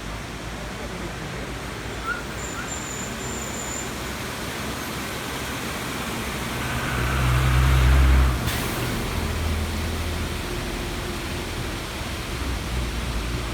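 Steady rushing of a waterfall, with a louder low rumble swelling up about seven seconds in and cutting off about a second later.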